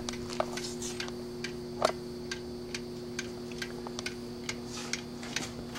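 Schumacher SE-2158 battery charger's timer ticking evenly, about two ticks a second, over a steady hum from the switched-on charger.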